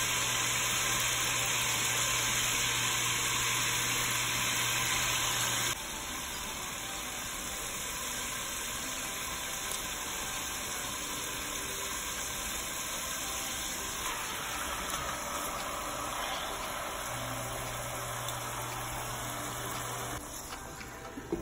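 Steady hiss of broth simmering in an enamelled cast-iron Dutch oven on the stove, with a low steady hum beneath it. The level drops abruptly about six seconds in.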